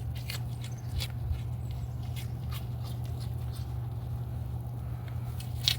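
A deer chewing and crunching food it was just fed: scattered short crunches and clicks over a steady low hum.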